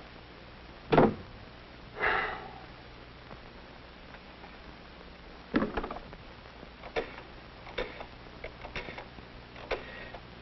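A door shutting about a second in, then a short scraping noise, a sharper knock at about five and a half seconds and a run of light clicks and knocks under a second apart, over a steady low hum.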